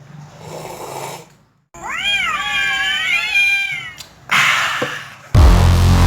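A long, drawn-out meow-like animal call that rises and then falls over about two seconds, after a soft rustle. Loud electronic music with a heavy beat starts near the end.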